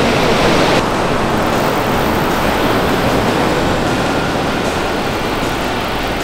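Steady rushing noise of surf breaking on a sandy beach. The hissy top end drops away about a second in.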